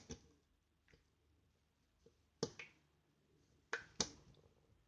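Jiggly slime being squeezed in the hands, giving a few sharp, faint clicking pops: one at the start, one about halfway, and two close together near the end.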